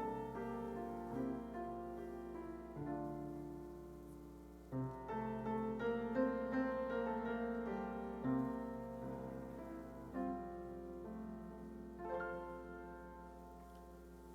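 Slow, quiet piano music: sustained chords struck every second or two, fading away near the end.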